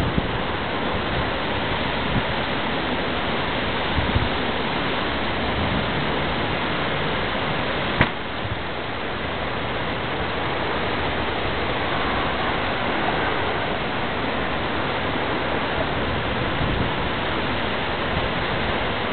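Steady rushing noise of a storm, with a single sharp click about eight seconds in.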